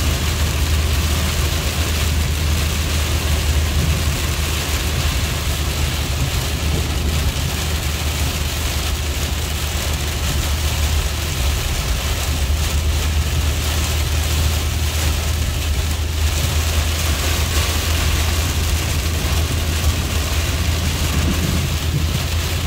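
Steady road and engine rumble heard inside a moving car's cabin, with heavy rain hitting the windshield and tyres hissing on the flooded, wet freeway.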